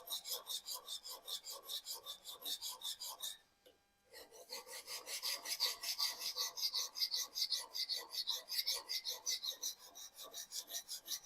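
Japanese kitchen knife blade scraped back and forth across a dry sharpening stone in quick, even strokes, about four a second, with a brief pause about three and a half seconds in before the strokes resume.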